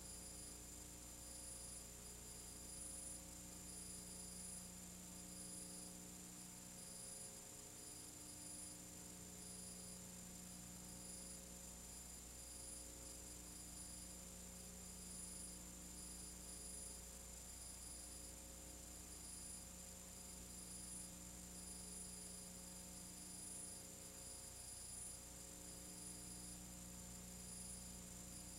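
Faint steady electrical mains hum with a thin high-pitched whine over light hiss. There is no other sound.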